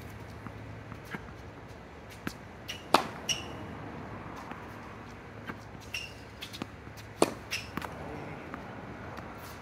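Tennis balls being hit with a racket and bouncing on a hard court: a string of sharp pops, the loudest about three seconds and seven seconds in, with a few short high squeaks.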